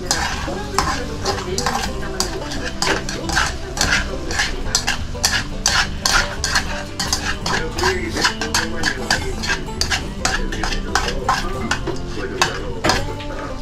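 Chopsticks and metal tongs clicking and scraping against a wide pan as marinated pork is stirred and turned, several clacks a second, over the sizzle of the pork frying on a tabletop gas burner.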